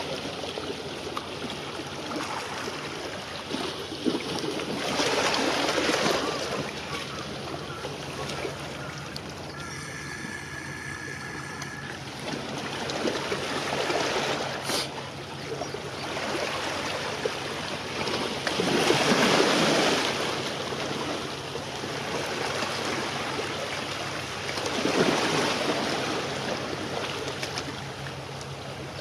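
Waves washing against the shore, swelling in surges every several seconds over a steady low hum. About ten seconds in comes a brief high tone lasting about two seconds.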